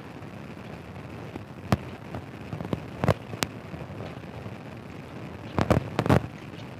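Steady noise of a moving motorcycle ride, broken by a scatter of sharp pops, with a cluster of four close together near the end.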